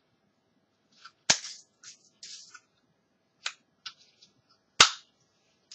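A few sharp snapping clicks, loudest about a second in and again near the end, with softer clicks and brief rattling between them, from small hand-held gear being worked.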